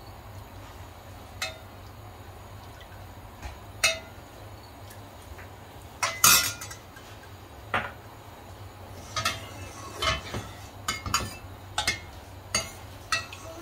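Steel ladle clinking against a stainless-steel kadhai of milk as it is scooped and stirred: scattered sharp metallic clinks, the loudest about six seconds in, then a quicker run of clinks near the end, over a low steady hum.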